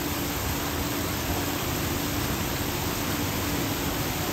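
Steady, even rushing noise with a faint low hum underneath.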